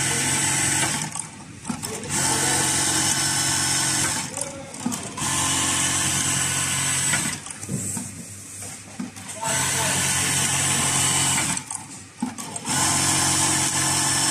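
ZOJE electronic buttonhole sewing machine sewing buttonholes in repeated cycles. Each cycle is a steady whine lasting about two seconds, followed by a short pause, about five times over.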